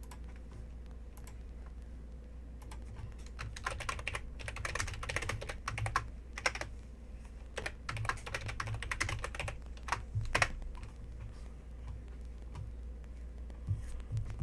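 Typing on a computer keyboard: two spells of quick key clicks, a few seconds each, over a low steady hum.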